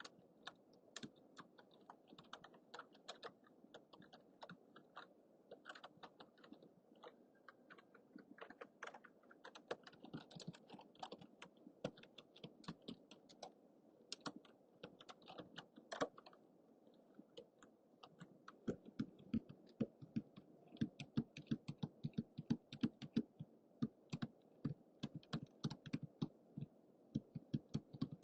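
Typing on a computer keyboard, picked up on a low-budget microphone: a quick, irregular run of key clicks. From about two-thirds of the way through, the keystrokes get louder and heavier.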